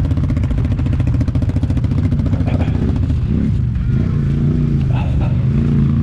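Quad (ATV) engine running off-road with a rapid, pulsing note for the first three seconds. Around three seconds in it changes to a steadier, smoother hum that wavers slightly in pitch.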